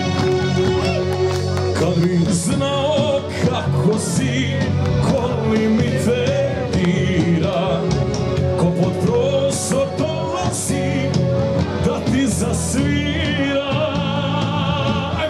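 Loud live music with singing: a Bosnian-language pop-folk song, with a man singing into a handheld microphone over sustained instrumental backing and bass.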